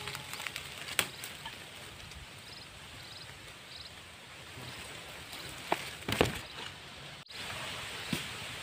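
Steady outdoor background hiss with a few soft knocks, and a few faint high chirps near the middle. The sound cuts off abruptly about seven seconds in, and a slightly louder steady hiss follows.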